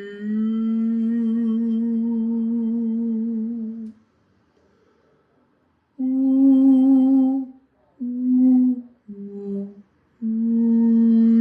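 A man humming a slow, wordless sound-healing melody of a few notes. He holds a long note with a slight waver, pauses for about two seconds, sings three short notes, then holds another long note.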